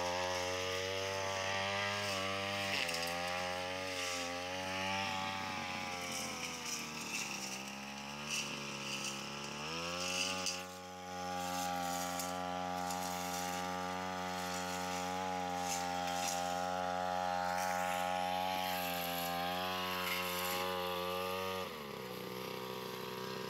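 Backpack brush cutter's small petrol engine running at high revs while cutting grass. Its speed sags for a few seconds and picks up again about ten seconds in, then drops to a lower speed near the end.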